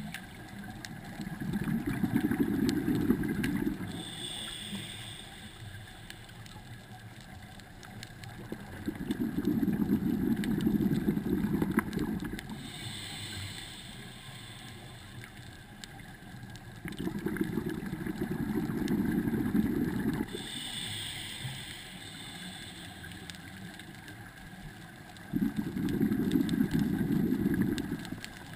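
Scuba diver breathing through a regulator underwater. Four exhalations, each a few seconds of bubbling rumble, come about every eight seconds, and a short hiss of inhalation sounds between them.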